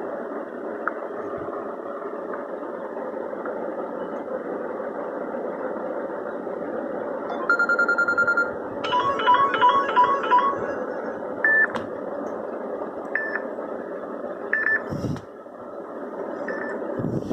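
Samsung Galaxy J7 (2015) phone speaker playing its electronic tones: a held tone, then a quick run of about five chiming notes, then a few single short beeps, over a steady background hiss.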